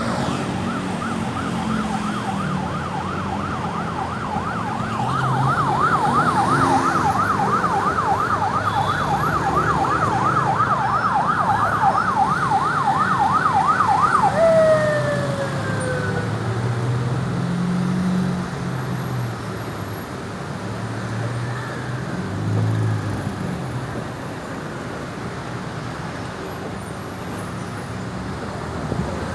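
Ambulance siren on yelp, a fast up-and-down wail about three times a second, growing louder, then ending about halfway through with a tone that slides down. Road traffic and engine noise carry on after it.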